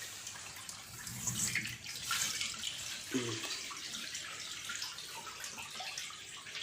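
Water draining and splashing out of a washing machine whose drain has been wired directly to power with a test cable. The drain works when it is wired directly, which the technician takes as a sign that the fault seems to lie in the machine's electronic control module.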